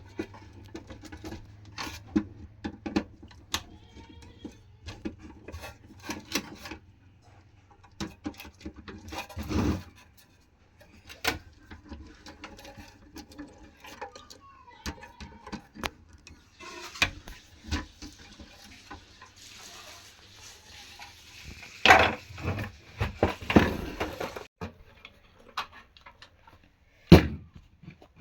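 Metal parts and tools clinking, clicking and knocking as a submersible pump's control panel box is worked on by hand, with a low steady hum for the first ten seconds that then stops.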